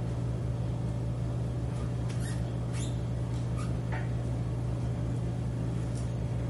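Felt-tip marker squeaking in several short strokes on an overhead-projector transparency, from about two to four seconds in, over a steady low hum.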